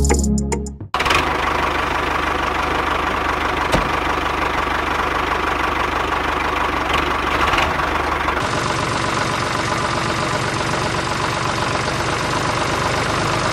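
Miniature model tractor running steadily as it pulls a loaded trolley, a continuous engine-like drone with a fine rapid pulse. The sound changes slightly about two-thirds of the way through.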